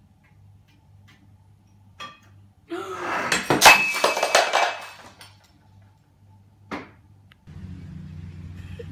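A container of dry cat food crashing from a kitchen counter onto a hard floor, the kibble scattering in a loud clatter of about two seconds with a short ringing in it, starting a little under three seconds in.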